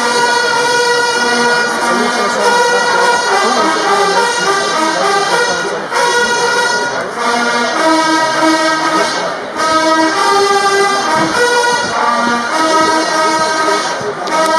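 Brass band music: a slow tune of long held notes.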